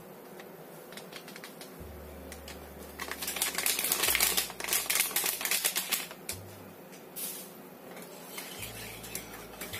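Sachet of agar powder crinkling and being shaken and tapped as the powder pours into a pan of liquid: a run of quick clicks and crackles starting about three seconds in and lasting a few seconds.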